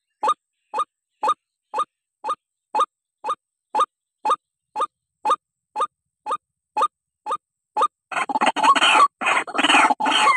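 White-breasted waterhen (ruak-ruak) calls, the recorded lure song used to trap the species: a regular series of short rising notes, about two a second. About 8 seconds in they give way to loud, harsh, rapid chattering calls.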